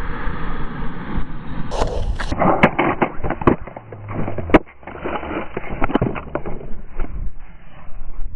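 Longboard wheels rolling fast on asphalt with wind rush. About two and a half seconds in, a string of sharp knocks and clatters follows as the camera and board tumble across the road in a crash, the loudest hit near the middle, then scraping and rolling on the pavement.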